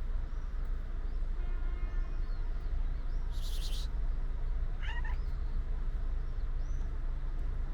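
A tuxedo cat meowing: one drawn-out meow about a second and a half in and a shorter call about five seconds in, over a steady low background rumble, with a brief hiss-like noise between the two calls and small high chirps here and there.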